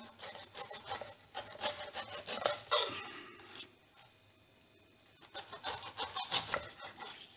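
Long kitchen knife cutting the spiky skin off a whole pineapple against a wooden chopping board: quick scraping, slicing strokes, which stop for about a second and a half midway and then start again.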